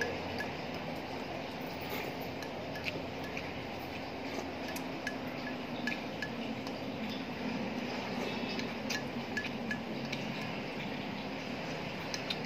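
Eating by hand from a plate: scattered light clicks and clinks of the plate and food being handled, over a steady low hum and a faint regular ticking.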